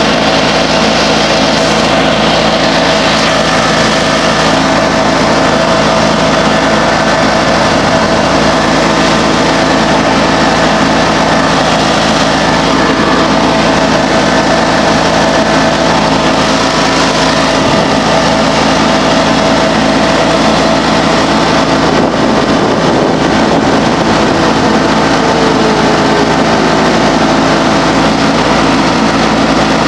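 John Deere X585 garden tractor's V-twin engine running steadily as the tractor drives along.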